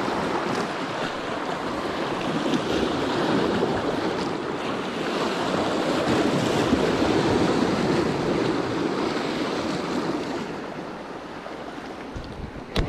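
Sea surf washing over shoreline rocks, a steady rushing that eases off near the end. A single sharp click comes right at the end.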